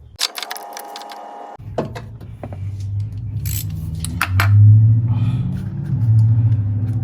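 Metal clinks from a socket wrench and extension as the ignition coil's 10 mm bolt is tightened, scattered over a low steady hum.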